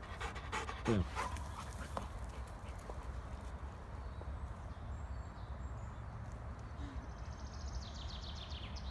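Labrador retriever panting hard, out of breath from a long run, with quick even breaths in the first second or so. After that a steady low wind rumble on the microphone fills the rest.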